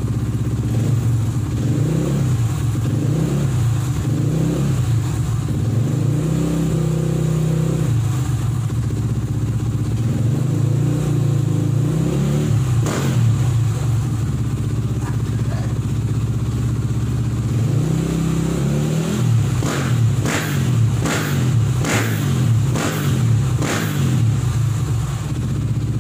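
KTM EXC 450 single-cylinder four-stroke with an FMF aftermarket exhaust, running and being revved in swells. There is one sharp crack about halfway through, and a quick run of about six sharp blasts near the end.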